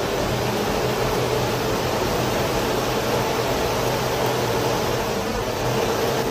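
Large 12-volt DC exhaust fan running off a battery, a steady rush of moving air with a steady motor hum.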